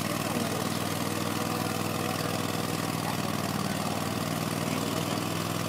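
Schlüter Super Trac 2200 tractor's diesel engine running steadily as it pulls a plough through deep mud.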